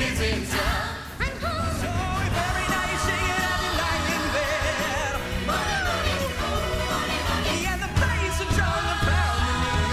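A musical-theatre song number performed live: a male lead singer with ensemble voices over a band, with a steady bass line. A sliding vocal line falls about halfway through, and the music gets louder near the end.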